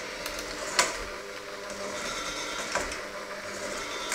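Electric hand mixer running steadily, its beaters churning a crumbly dough in a stainless steel bowl, with two sharp clinks of metal on the bowl, about a second in and near three seconds.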